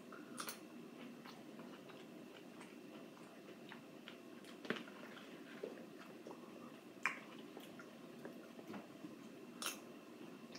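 A metal spoon clicking and scraping in a plastic tub of blueberries as they are scooped, four sharper clicks standing out among softer ticks, with quiet chewing.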